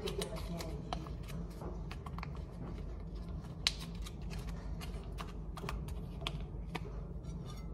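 A butter wrapper being unfolded and peeled back by hand, crinkling with irregular sharp crackles, one louder about halfway through.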